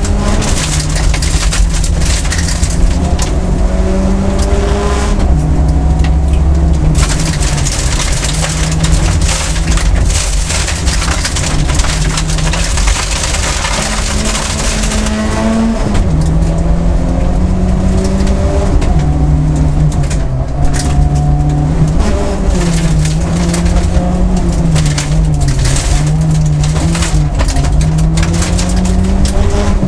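Rally car engine heard from inside the cabin, driven hard at high revs on a gravel special stage, its pitch climbing and dropping again and again through gear changes and lifts for corners. Gravel noise from the tyres and underbody runs loudly beneath it.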